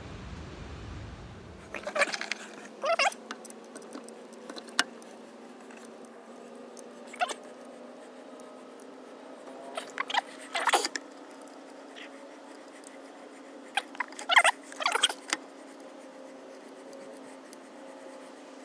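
Irregular short clicks, knocks and scrapes of metal parts being handled while a direct-mount PTO is fitted to a truck transmission, loudest in clusters about 10 and 14 seconds in, over a faint steady hum.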